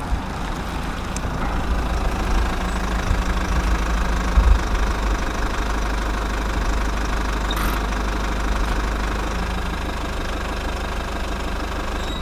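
Engine running steadily with a deep, even rumble.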